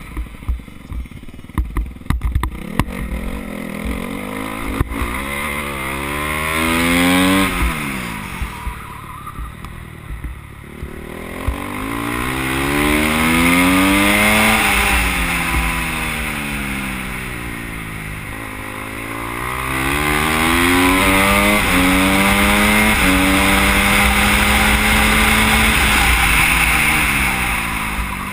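Motorcycle engine, heard from the rider's helmet with wind rush, revving up hard through the gears and dropping back for the corners. Sharp knocks and rattles in the first few seconds as it crosses rough dirt.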